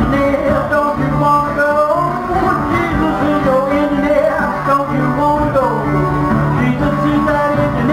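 Live acoustic blues on a National metal-bodied resonator guitar, played with a steady driving rhythm, with a man singing along.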